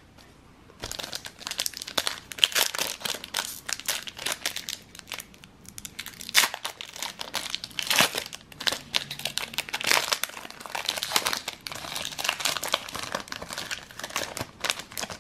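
Foil trading-card pack wrapper (Panini NBA Hoops) crinkling and tearing as it is ripped open and crumpled in the hands. The crackle starts about a second in, is dense and irregular, and has several sharper crackles.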